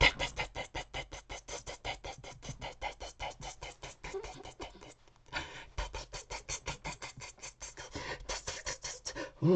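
Teeth chattering made by mouth as a sound effect: rapid, even clicking at about nine clicks a second, with a brief pause about halfway through.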